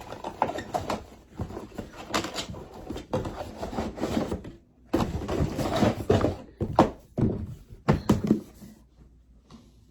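Handling noise as a hair dryer, its attachments and packaging are moved and set down: irregular thunks, knocks and rustling, quieter near the end.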